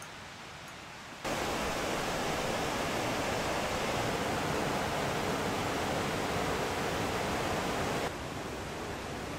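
Steady rushing of a waterfall. It comes in abruptly and loud about a second in, then drops to a quieter hiss of water near the end.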